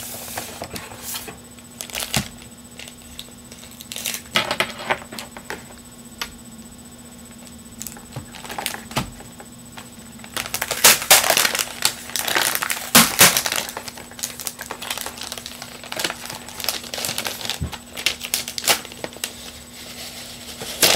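Packaging being handled and pulled open: irregular rustling, crinkling and scraping with scattered clicks, busiest and loudest for a few seconds about halfway through, as the keyboard is worked out of a tight-fitting box. A faint steady hum sits underneath.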